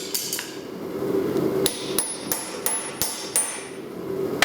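Hammer striking metal on an anvil, each blow leaving a short high ring. Two blows come early, then a steady run of about three blows a second through the middle, over a steady background hum.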